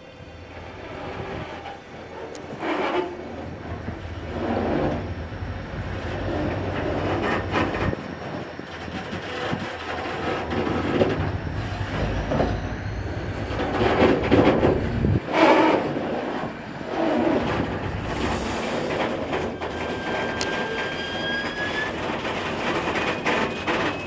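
Freight train wagons clanking and creaking over a low locomotive engine rumble that stops about fifteen seconds in. A thin, slightly rising squeal follows near the end. The train is stalled in the desert with engine trouble.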